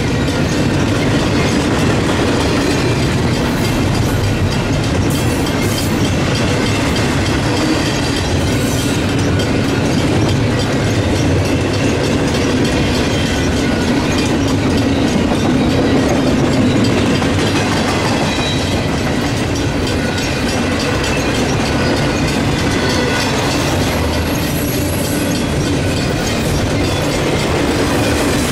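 Double-stack intermodal freight train passing at close range: a steady clatter and rumble of its wheels on the rails.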